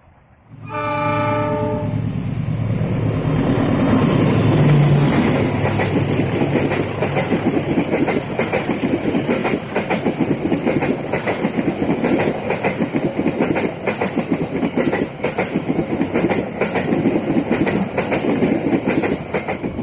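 Argo Semeru express passenger train passing close by. A short, steady blast of the locomotive's chord horn sounds about half a second in, then the locomotive runs past, loudest a few seconds in. After that the coaches' wheels clatter over the rail joints in a rapid, even clickety-clack.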